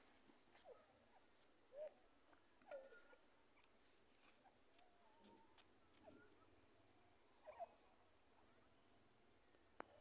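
Very quiet rural background: a steady high drone of crickets, with a few faint, short bird chirps scattered through it.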